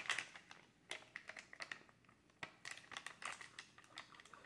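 Plastic MRE flameless ration heater bag crinkling as hands grip and pull at its top: faint, irregular rustles and small crackles.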